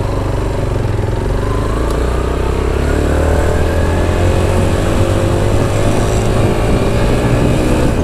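Motorcycle engine pulling away and accelerating, its pitch climbing steadily through the second half, over a steady low rumble.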